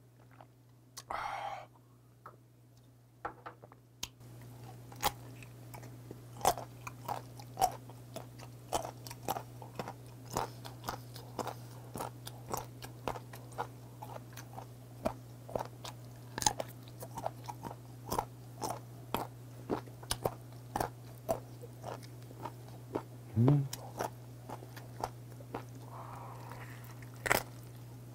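Close-miked chewing of the gristly larynx end (ulddae) of a boiled hanwoo beef tongue, with crisp cartilage crunches several times a second starting about four seconds in. A steady low hum runs underneath.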